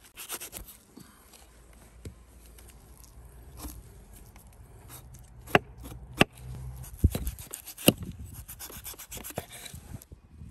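Knife cutting and scraping meat off a raw cow head, with several sharp clicks of the blade in the second half.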